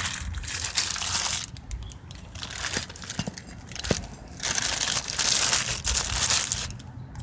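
Packaging crinkling and rustling in uneven bursts as a new wheel hub assembly is unpacked, with a few light taps in the middle.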